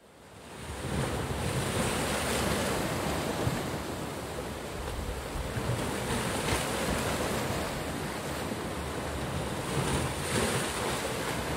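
Wind and sea waves: a steady rushing noise that fades in over the first second.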